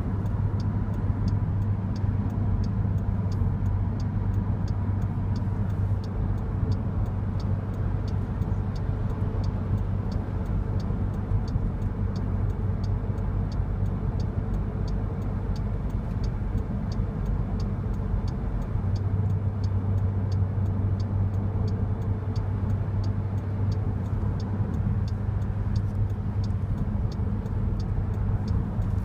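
Steady road and engine noise inside a car's cabin at highway speed, with a strong low hum. A light, regular ticking comes about twice a second over it.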